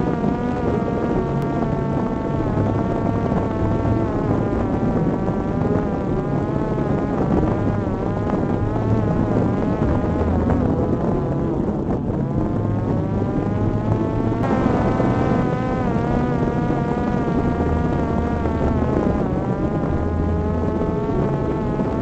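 Parrot Disco fixed-wing drone's electric motor and pusher propeller buzzing in cruise flight. The pitch wavers throughout, dips about ten to twelve seconds in, then climbs back.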